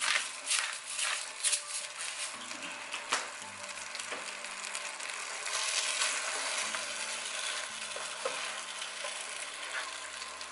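Lamb, silver beet and tomatoes sizzling in a frying pan while being stirred and tossed with two utensils. A few sharp ticks sound in the first couple of seconds, and the sizzle grows steadier from about halfway.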